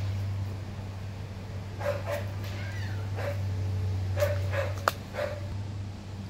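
American Bully puppy giving a series of short whines from about two seconds in, one of them sliding down in pitch, over a steady low hum.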